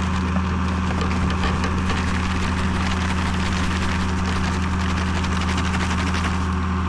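An engine running at a steady speed, giving a constant low drone with no change in pitch.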